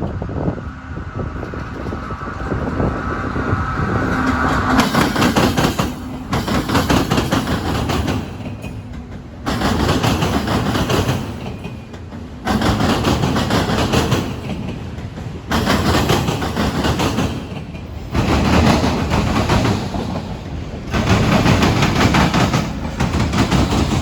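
Train cars rolling past close by. The wheel noise swells and dips every two to three seconds as each car goes by, with a clickety-clack of wheels over the rails.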